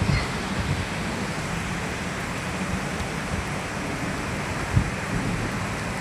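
Wind buffeting the microphone with irregular low rumbles, over a steady rushing hiss.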